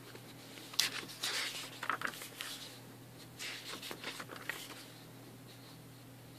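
Paper pages of a booklet being turned by hand, rustling and swishing in two spells, about a second in and again around three and a half seconds in.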